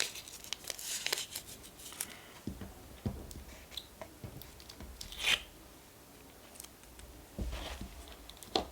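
Paper and packaging being handled: short, scattered rustles and tearing, the loudest about five seconds in.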